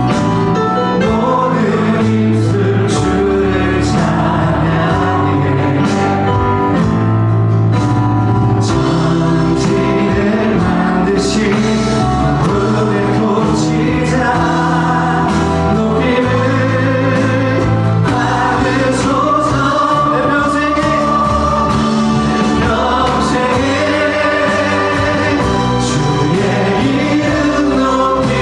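Church worship music: a group of voices singing a Korean praise song together over instrumental accompaniment with a steady beat.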